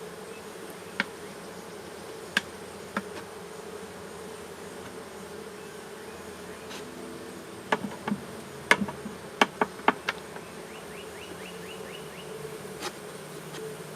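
Honeybees buzzing steadily around an open hive, with sharp clicks and knocks of a metal hive tool scraping and tapping against the wooden frames. Most of the knocks come in a cluster about eight to ten seconds in, followed by a quick run of light ticks.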